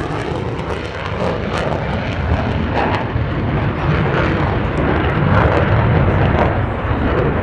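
F-35A Lightning II fighter jet's F135 afterburning turbofan flying by, a loud low rumble with crackling. The high hiss drops away in the first second as the jet moves off, while the rumble holds and swells again later.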